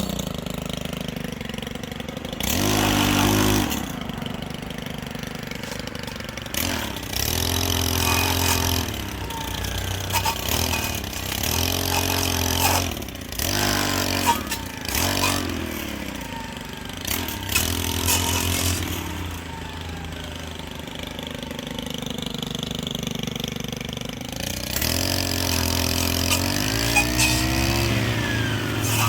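Stihl FS 111 R brushcutter with a saw blade, its small 4-MIX engine running and revving up and dropping back again and again, as in cutting branches.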